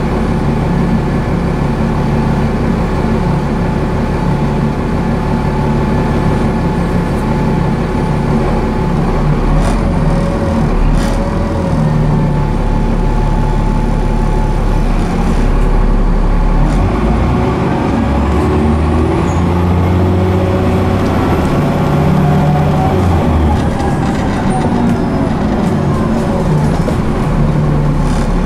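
Cummins ISCe diesel engine and Voith D851.3E automatic gearbox of a Transbus Trident double-decker bus on the move, heard from inside on the upper deck. The engine note rises and falls several times as the bus accelerates and the gearbox changes gear.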